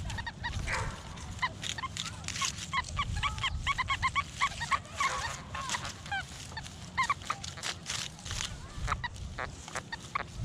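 Deus metal detector sounding its pitch tones: many short beeps that rise and fall in pitch, coming in quick runs as the coil sweeps over targets in iron-rich, mineralised soil, with clicks in between.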